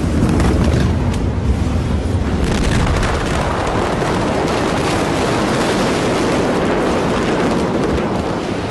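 The Beirut port explosion of stored ammonium nitrate, heard through amateur phone footage: a loud, continuous rumble of noise, heaviest in the low end, following the blast. A short sharp crack comes about a second and a half in.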